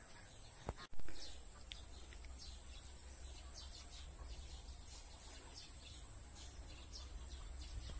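Rural outdoor ambience: scattered short bird chirps over a steady high insect drone and a low background rumble. A click and a brief gap come about a second in.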